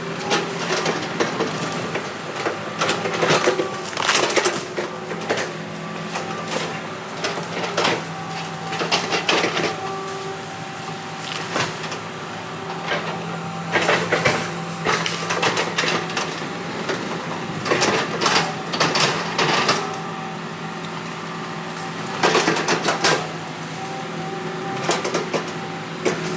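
Heavy construction machine's diesel engine running steadily, with repeated sharp clanks and knocks from the working machine.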